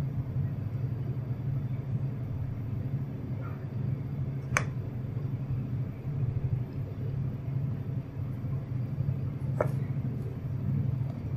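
A steady low background hum, with two sharp clicks about five seconds apart.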